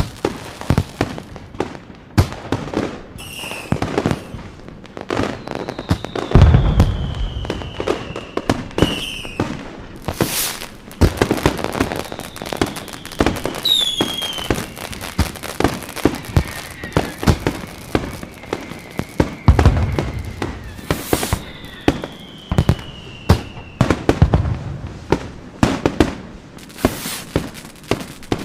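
Fireworks going off: a dense run of sharp cracks and pops, with deep booms about six seconds in and twice more near twenty and twenty-four seconds, and a few high whistles that fall in pitch.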